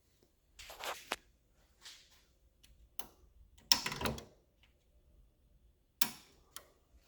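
A handful of sharp clicks and knocks, with a short rattling clatter about halfway through that is the loudest.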